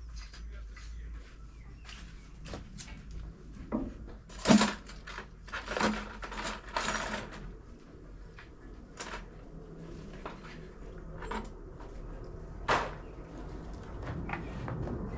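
Irregular knocks, taps and scrapes of hand tools at work, with the loudest knock about four and a half seconds in and a few longer scraping strokes just after.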